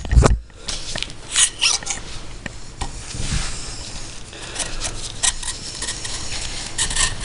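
Small steel air-rifle parts being worked by hand: the hammer and hammer housing are drawn out of the action, giving light metallic clicks, clinks and scraping, with a dull knock at the start.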